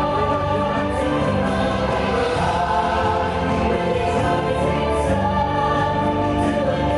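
Orchestral music with a choir singing long held chords: the score of a fireworks show.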